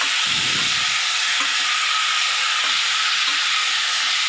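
Hot oil sizzling steadily in a steel pot as peeled mango pieces fry, with a wooden spatula stirring through them.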